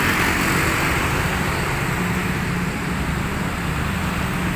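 Steady road traffic passing close by: a stream of scooters and motorcycles with a few cars and minibuses, engines running and tyres hissing on the wet asphalt.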